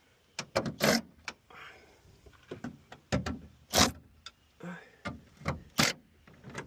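A series of irregular sharp knocks and clicks, about a dozen over several seconds, like hard parts being handled and tapped.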